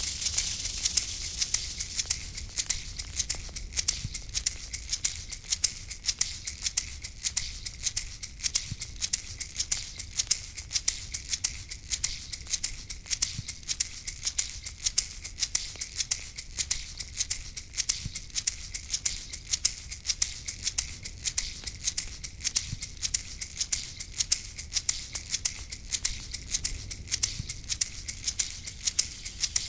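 A shaman's rattle shaken in a steady, fast rhythm, about four shakes a second, over a low rumble.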